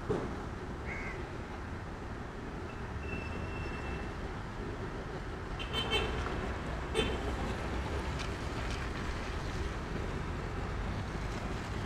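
Steady traffic rumble from vehicles passing on a wet street, a motorbike, a car and a small truck among them. A few short sharp sounds stand out over it, the loudest two about six and seven seconds in, with crow caws among them.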